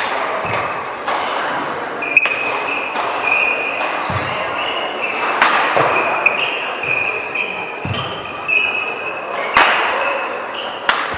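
Badminton rally in a large hall: sharp racket strikes on the shuttlecock every one to three seconds, with short high squeaks of court shoes on the floor in between.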